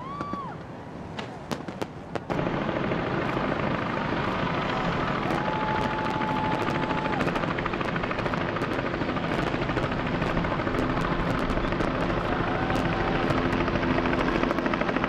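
A few sharp clicks, then about two seconds in a loud, steady mechanical rushing noise with a low hum starts abruptly. A few brief steady tones sound over it.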